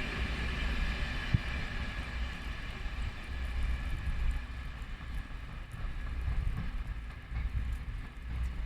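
A train rumbling away after passing, its noise fading as it moves off, with a low uneven rumble left.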